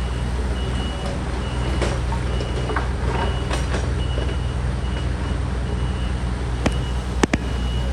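Construction vehicle's reversing alarm beeping about once a second over the steady drone of a heavy engine running, with two sharp knocks near the end.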